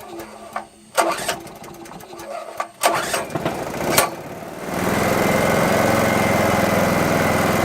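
Small generator engine running on propane, pull-started by its recoil cord: two rattling pulls, then it catches about two-thirds of the way through and settles into a steady run. It is running on propane fed straight into a carburettor held fully open, after about five years unused.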